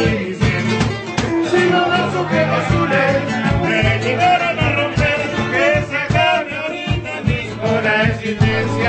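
A man singing to a strummed acoustic guitar, in a Latin American song style.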